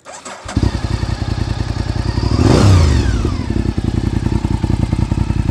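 A 90-degree V-twin sportbike on an aftermarket exhaust is started. It cranks briefly and catches about half a second in. The throttle is blipped once, rising and falling in pitch, and the engine then settles into a steady, lumpy idle.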